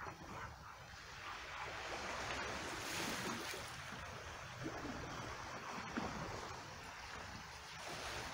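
Small waves washing over the rocks and cobbles of a calm shore, mixed with water running in a rock pool. A wash swells about a second in, is loudest around three seconds, then eases.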